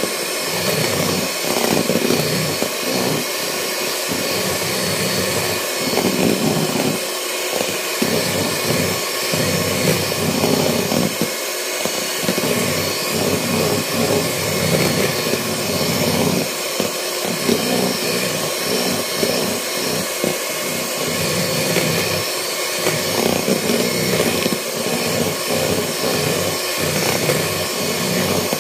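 Handheld electric mixer running steadily, its twin beaters whipping egg whites in a plastic bowl toward stiff peaks.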